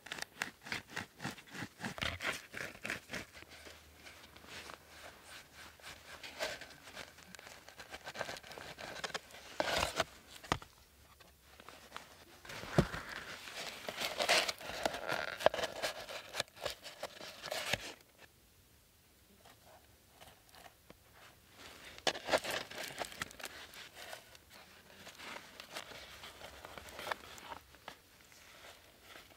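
A sheet of birch bark being cut with a knife and bent and folded by hand: dry crackling, scraping and crinkling in irregular stretches, with a quieter pause a little past halfway.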